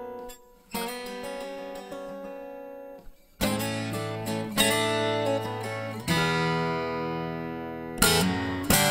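12-string acoustic guitar playing softly ringing chords, with two short pauses, then from about three and a half seconds in, louder, fuller chords struck every second or two and left to ring.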